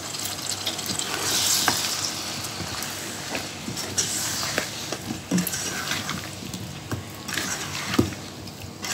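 Potatoes, tomatoes and spices frying in oil in a non-stick pan, sizzling steadily while a spatula stirs them, with occasional taps and scrapes of the spatula against the pan.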